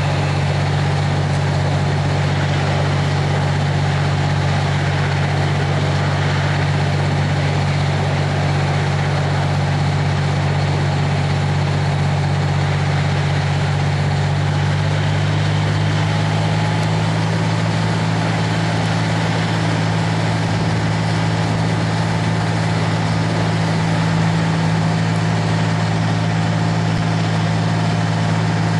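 A fire engine's diesel running steadily, its note changing slightly about halfway through, over the steady rushing of the burning gas main.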